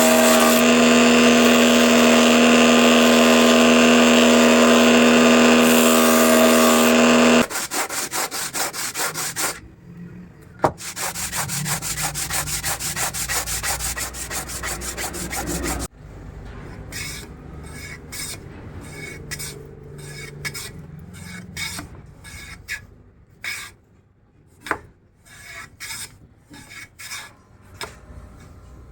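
An electric power tool's motor runs steadily for about seven seconds and then stops. It gives way to hand-worked wood: a quick run of even rubbing strokes, then slower, irregular rasping and rubbing strokes on wenge wood.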